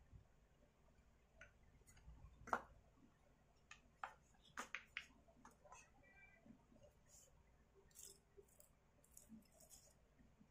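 Scattered light clicks and knocks of hard plastic chainsaw parts being handled and fitted together, with one sharper knock about two and a half seconds in and a quick cluster of clicks around the middle.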